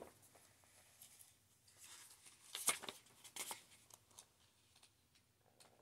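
Faint rustling and a few soft clicks of a small paper guidebook being handled and its pages moved, clearest around the middle.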